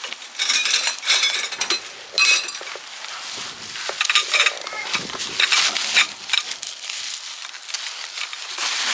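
Hard objects clinking and clattering at irregular intervals, with a short metallic ring after many of the knocks.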